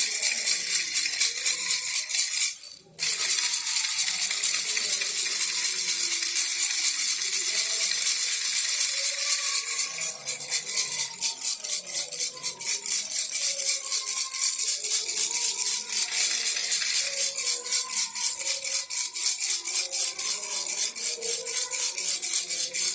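Baby rattle being shaken continuously, a dense, rapid rattling, with a brief stop about three seconds in.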